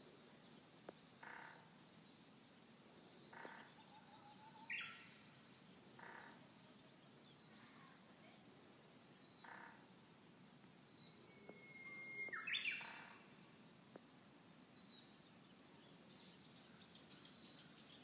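Faint outdoor birdsong: a Japanese bush warbler (uguisu) sings once about twelve seconds in, a long held whistle breaking into a quick flourish. Shorter calls repeat every two or three seconds, and a quick run of high notes comes near the end.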